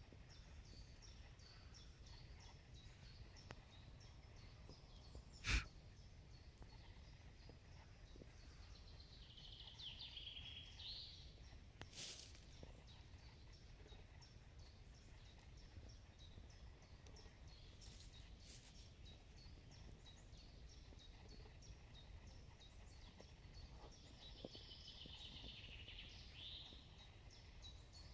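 Faint songbirds singing in a spring forest: a steady sprinkling of short, high chirps, with a longer warbled song phrase about ten seconds in and again near the end. A single sharp click about five and a half seconds in is the loudest sound, over a low, steady rumble.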